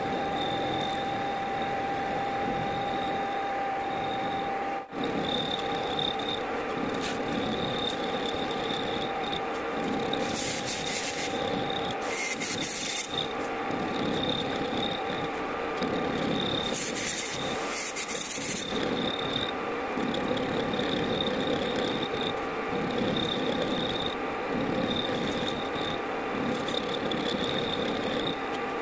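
Metal lathe running with a rotating cutter in its spindle milling a slot into a metal workpiece held in a chuck on the cross slide: a steady whine from the machine under a continuous scraping of the cut, with a brief dropout about five seconds in.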